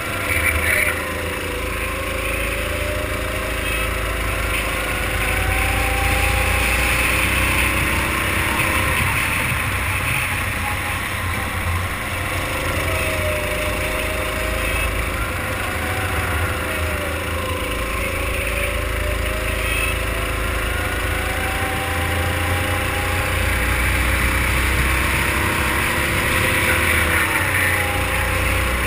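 Racing kart engine at full race pace, heard from the driver's seat: the revs climb on the straights and drop several times going into the corners, with a steady low rumble underneath.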